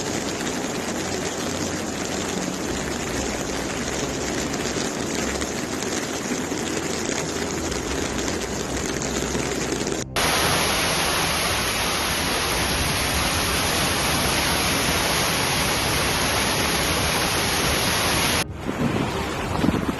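Steady rushing noise of storm rain and running water. About halfway through it cuts to a louder, hissier rush, which stops abruptly shortly before the end.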